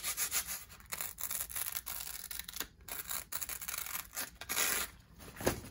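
Vinyl sheeting of an inflatable pool's sunshade canopy crinkling and rustling as it is handled, with many irregular short crackles.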